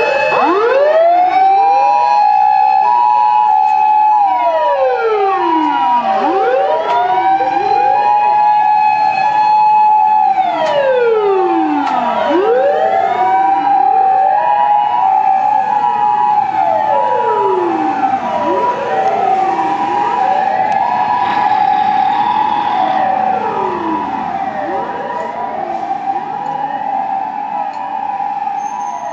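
Japanese fire rescue truck's motor siren wailing, winding up and falling away about every six seconds, with more than one wail overlapping. Two alternating steady tones sound beneath it. The sound eases off a little near the end as the truck draws away.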